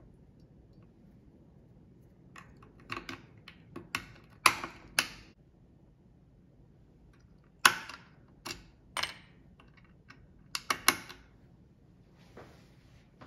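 Sharp metallic clicks and clinks of small Abus padlocks being picked, opened and handled in a bench vise, coming in two bursts with a quiet pause between, the loudest clicks about four and a half and seven and a half seconds in.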